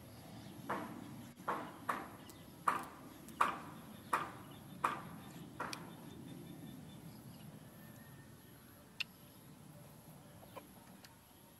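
A chicken clucking: a run of about eight clucks, spaced under a second apart, stopping after about six seconds. A single short click follows a few seconds later.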